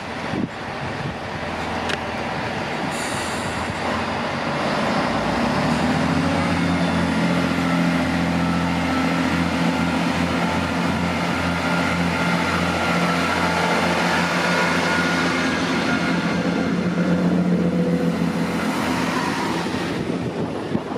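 Class 165 diesel multiple unit pulling away from a station. Its underfloor diesel engines open up about five seconds in to a steady, loud low drone under power, with the noise of the carriages rolling past.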